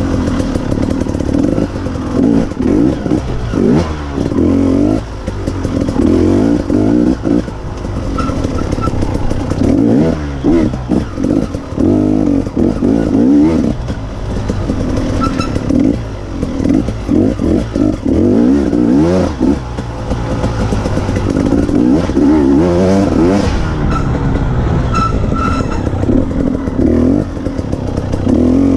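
Off-road dirt bike engine being ridden hard, revving up and dropping off over and over as the rider accelerates, shifts and backs off along a dirt trail.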